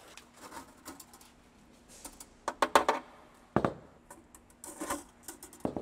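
Hands working at a workbench: scattered light clicks, knocks and rustles as nitrile gloves are pulled from their box and small metal parts and a paper shop towel are handled, with a few sharper knocks in the second half.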